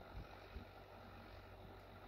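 Faint, distant Massey Ferguson tractor engine running with a steady low hum, with a few soft wind thumps on the microphone.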